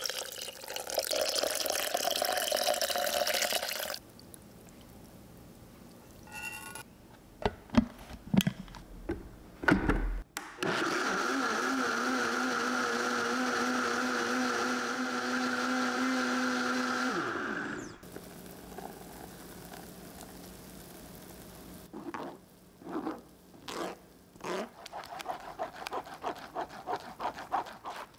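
Water running for a few seconds, then clicks and knocks of things being handled. An electric blender then runs steadily for about seven seconds and winds down, falling in pitch as it stops. A few light taps and clicks follow.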